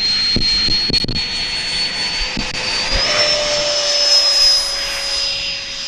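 Electric ducted fans of a Freewing F-15 model jet, fitted with a 9-bladed power system, running at high power with a high-pitched whine that steps up in pitch about three seconds in. Wind buffets the microphone with low thumps in the first half.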